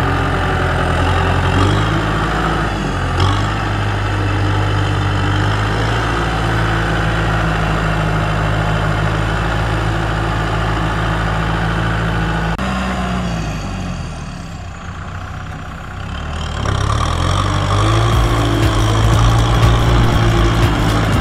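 Kubota M6040SU tractor's four-cylinder diesel engine running steadily under load in deep paddy mud. About twelve seconds in the revs fall and it goes quieter for a few seconds, then the revs climb back and it runs louder again.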